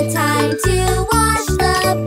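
Children's nursery-rhyme song: a line sung over an instrumental backing with a steady bass beat.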